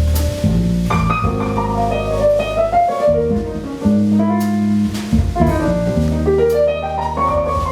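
A small jazz band playing live: keyboard lines running up and down over sustained bass notes, with a few light cymbal strokes from the drum kit.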